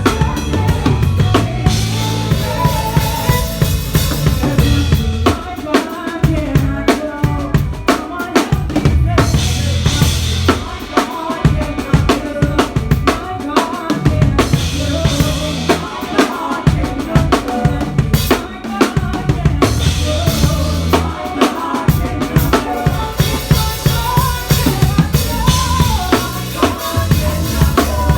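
Live drum kit playing a steady groove with kick drum, snare and rimshots, over sustained bass notes and other pitched band instruments. It is a raw, unmixed recording with the drums loudest.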